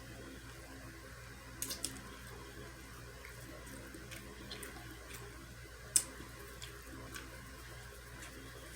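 Close-up chewing of oxtail meat: quiet wet mouth smacks and clicks, a pair about a second and a half in and a sharper one near six seconds, over a steady low hum.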